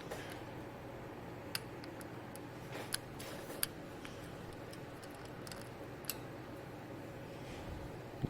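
A few faint, sharp snips and clicks of small hand tools working on headphone cable, spaced a second or more apart, over a low steady hum.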